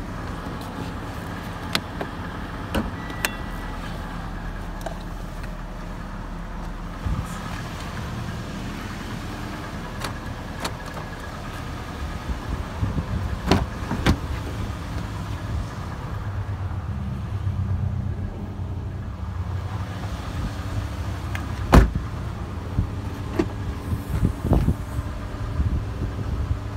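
Car engine idling steadily, with scattered clicks and knocks from the body being handled and one louder clunk late on, such as a door or tailgate latch.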